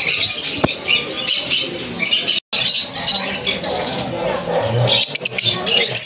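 A shop full of caged lovebirds and other small parrots chattering with shrill, high-pitched chirps and squawks. The sound breaks off for an instant about two and a half seconds in.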